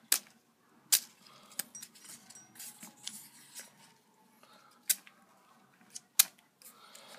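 A very sharp knife blade slicing through a strip of paper: a handful of crisp snicks as the edge cuts through, with faint paper rustling between them.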